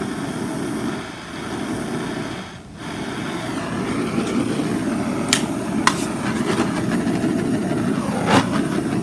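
Handheld torch flame burning with a steady rushing sound as it is passed over wet acrylic paint to pop bubbles in the white. The flame sound dips briefly about a second in and again near three seconds, with a couple of light clicks in the middle.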